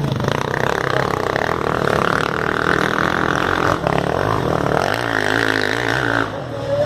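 Off-road motorcycle engines revving hard under load on a steep dirt hill climb, the note held high and wavering with the throttle, with a brief dip about four seconds in and easing near the end.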